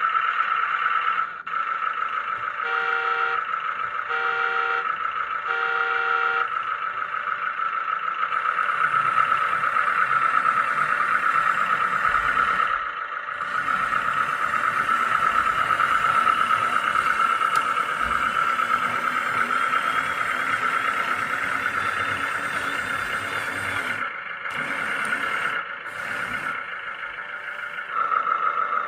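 Hydraulic pump of a Lesu MC15 radio-controlled hydraulic excavator whining steadily, dipping briefly twice as the load changes. Three evenly spaced electronic beeps sound a few seconds in.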